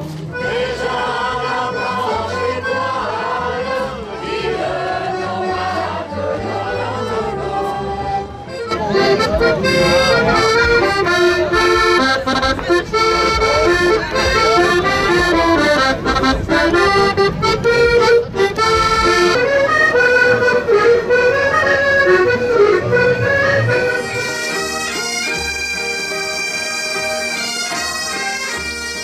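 Traditional folk music in short successive clips: one tune for the first eight seconds or so, then a louder, lively button-accordion tune, then bagpipes from about 24 seconds in.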